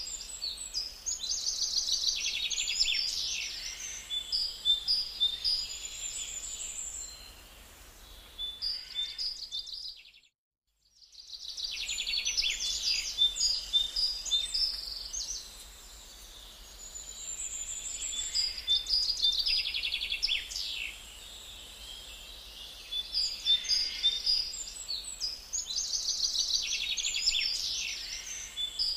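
Birds chirping and trilling with rapid, high-pitched calls over outdoor ambience. The same run of calls repeats about every eleven seconds, with a second of near silence about ten seconds in.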